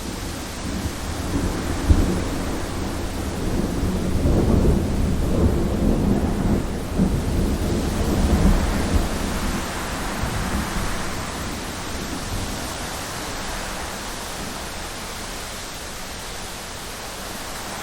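Thunderstorm: a long, deep rumble of thunder swells a couple of seconds in, holds for several seconds and slowly fades, over steady heavy rain.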